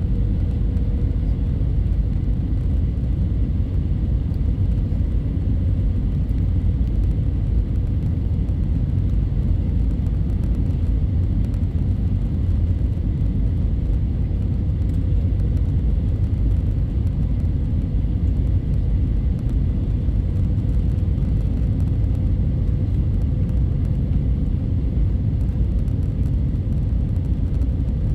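Steady low rumble of an Airbus A320's cabin in flight: jet engines and airflow, with a faint steady hum above it.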